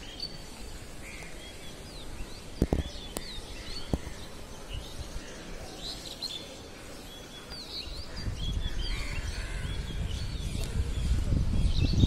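Many small birds chirping and twittering in trees. There are a few sharp clicks about three seconds in, and a low rumble grows louder over the last few seconds.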